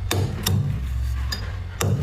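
Thick freezer frost being scraped and chipped off, giving a few sharp, crunchy cracks spaced unevenly, over a steady low hum.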